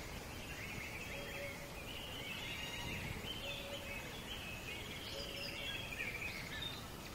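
Birds chirping and twittering, with a short lower note recurring every couple of seconds, over steady outdoor background noise.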